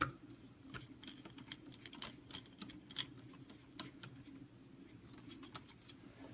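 Faint, irregular clicks and taps of a screw being driven back in by hand with a screwdriver into the plastic foot pedal assembly of a Dyson DC25 vacuum.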